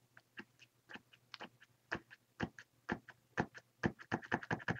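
White paint pen being worked to get the paint flowing, the pen not yet writing: a series of sharp clicks, sparse at first, coming faster near the end.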